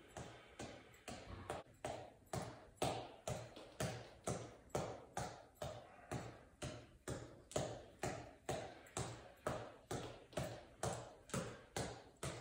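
Gloved fists repeatedly punching a headband reflex ball on an elastic cord, a steady run of taps about two a second.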